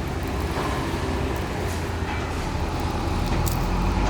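A steady low mechanical rumble, like a running engine, with a few faint light ticks.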